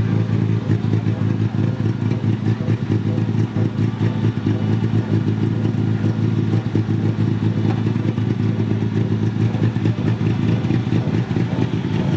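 A vehicle engine running steadily at a constant low pitch, with no rise or fall of a passing car.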